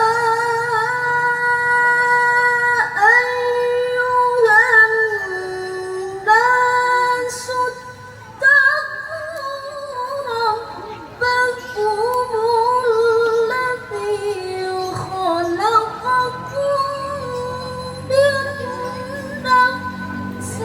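A woman reciting the Quran in melodic tilawah style. She holds long notes that glide and waver between pitches in ornamented phrases, with short pauses for breath between them.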